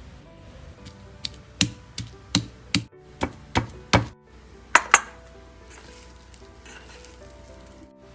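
Stone pestle pounding pieces of boiled beef on a stone mortar to flatten them: about ten sharp knocks, two or three a second, stopping about five seconds in. Soft background music with held notes runs underneath.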